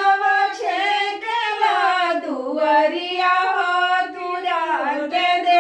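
Women singing a devotional folk song to the goddess without instruments: one slow melody line that glides and wavers in pitch, with no breaks.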